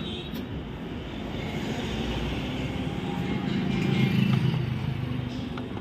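Road vehicle engine passing by: a low rumble that swells about two seconds in, peaks around four seconds and then fades, over a steady traffic background.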